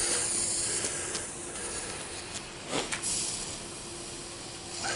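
Burning fuse of a small firework fountain (a Weco gold volcano) hissing and sputtering, slowly fading, with a few sharp ticks in the middle.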